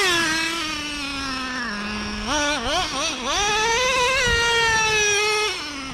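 Traxxas Revo 3.3's small two-stroke nitro glow engine revving on the throttle. Its high note falls away, drops low, blips a few times, then climbs to a long high run and eases off near the end. At the top it is not quite opening up, a sign that the high-speed needle still needs tuning.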